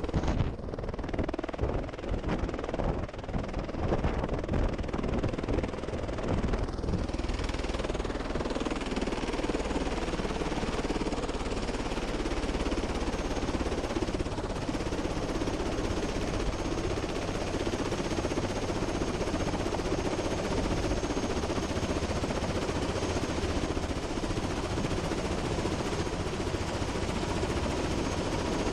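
Helicopter running on the ground with its main rotor turning, a steady rapid beating of the blades over turbine noise, with a thin high whine coming in about a quarter of the way through.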